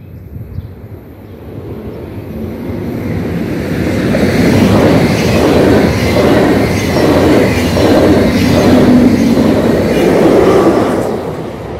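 Swiss double-deck intercity train, hauled by an Re 460 locomotive, passing at speed over the level crossing. The rumble builds over the first few seconds, then the passing carriages give a loud, repeating clatter of wheels for about seven seconds, easing off near the end.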